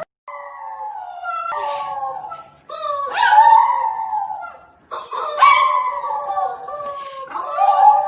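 A dog howling: four long, wavering howls, one after another with short breaths between them.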